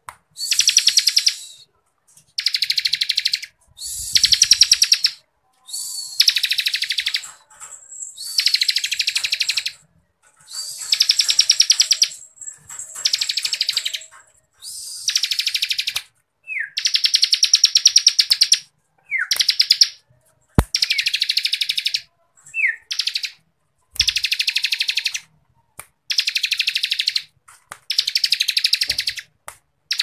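Bar-winged prinia (ciblek kristal) singing its rapid rattling 'ngebren' trill, in about a dozen high phrases of a second or so each with short pauses between them. A few quick falling notes come between the phrases, and there is one sharp click about two-thirds of the way through.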